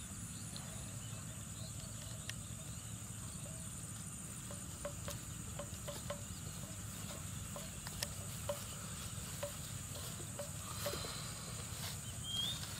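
Insects chirring in a steady high-pitched drone, with scattered soft clicks and a short rising chirp near the end.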